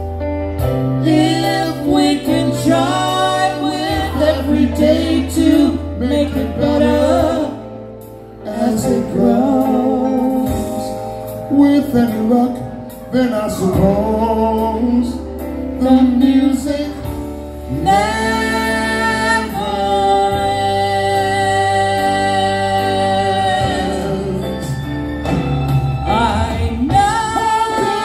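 A woman and a man singing a duet into microphones over amplified backing music with a steady bass line, holding a long note together about two-thirds of the way through.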